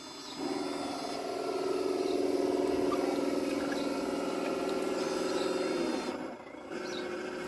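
Radio-controlled scale construction machine running, a steady mechanical whine that rises in level after about a second, drops out briefly about six seconds in, then starts again.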